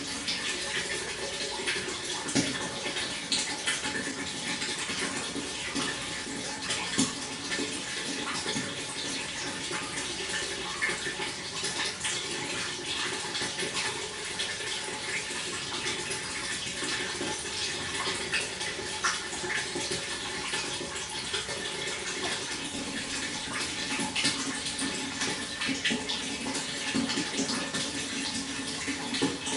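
Water flowing steadily, with many small splashes throughout.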